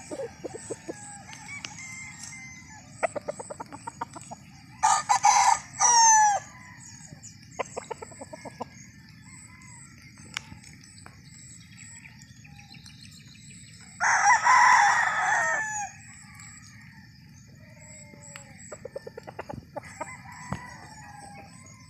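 Roosters crowing: two loud crows, one about five seconds in and one about fourteen seconds in, each falling in pitch at the end. Between them come short bouts of quick, low clucking.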